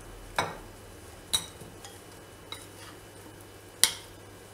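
A spoon and bowls clinking: four sharp clinks, the loudest near the end, as cauliflower florets are tipped into a ceramic bowl of batter and stirred in.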